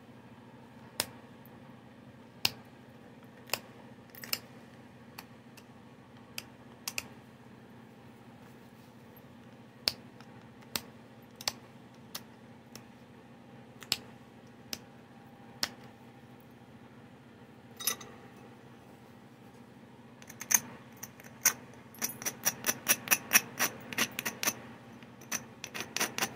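Stone Clovis point being pressure-flaked against a leather pad: sharp clicks as small flakes pop off the edge, about one a second at first, then a quick run of clicks near the end.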